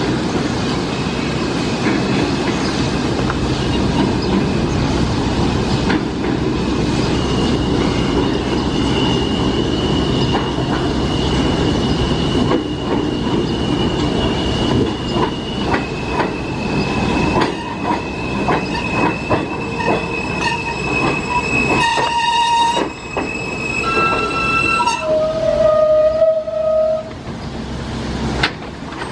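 An R160A New York City subway train pulling into a station and braking to a stop: a steady rumble of wheels on rail, with a high, steady wheel squeal and clicking over the track joints. Near the end a series of tones steps down in pitch as the train stops.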